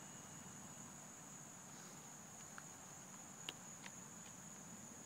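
Faint, steady chorus of crickets: one high, unbroken trill, with a few small clicks in the second half.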